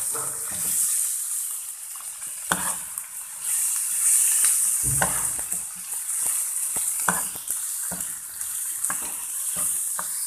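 Chicken pieces sizzling in hot oil in a frying pan while a slotted spatula stirs them; the sizzle swells and eases, and the spatula knocks and scrapes against the pan now and then.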